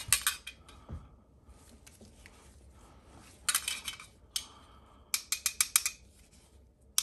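Small metal pistol magazine floor plates clicking and clinking as they are handled and tapped together: a few single sharp clicks, then a quick run of about seven taps around five seconds in.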